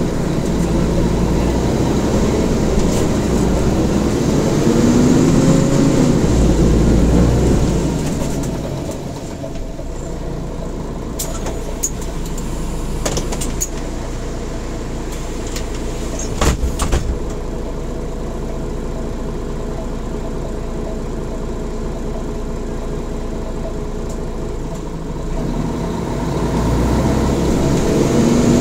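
Mercedes-Benz Citaro G articulated city bus heard from inside the cabin: the engine runs loud with a rising pitch at first, then drops to a quieter steady sound for most of the time. A few sharp clicks and knocks come about halfway, and the engine note builds again near the end.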